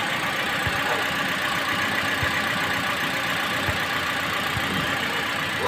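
Four-cylinder petrol engine of a 2023 Toyota Yaris idling roughly, with uneven low thumps at irregular intervals as it hesitates. The hesitation is a slight misfire, which the uploader puts down to one faulty fuel injector.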